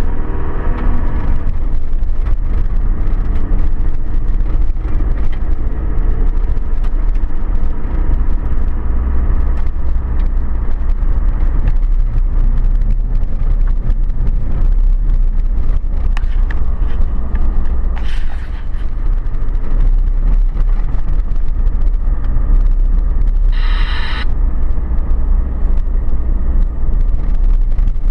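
Vehicle driving along an unsealed dirt track, a steady low rumble of engine and tyres on gravel. A short high-pitched sound comes about three-quarters of the way through.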